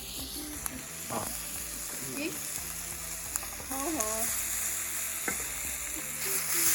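Food sizzling as it fries in a pan, a steady hiss with a few light clicks.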